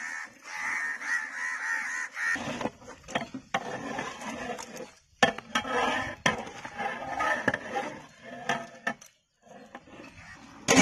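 Large flat metal ladle stirring chicken, tomato masala and fresh herbs in a big aluminium cooking pot: uneven wet stirring and scraping, with sharp knocks of the ladle against the pot, the loudest about five seconds in.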